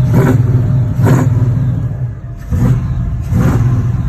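G-body Monte Carlo's LS V8 engine running and being revved, rising and falling in about four blips. It runs because the failed fuel pump relay has been bypassed with a fused jumper wire, curing the crank-no-start.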